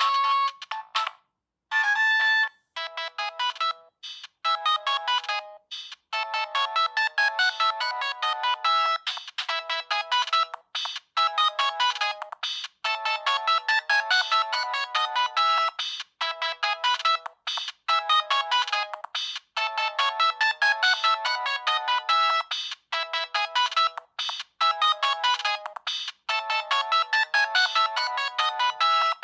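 A Siemens C65 mobile phone plays its stock polyphonic ringtones: a fast electronic melody of short, quick notes with no bass. A brief break about a second and a half in, followed by a short phrase, marks one tune ending and the next beginning.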